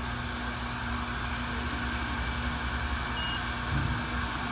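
On-car brake lathe's motor running steadily with a constant hum, turning the hub and brake rotor during its calibration run. A short beep about three seconds in.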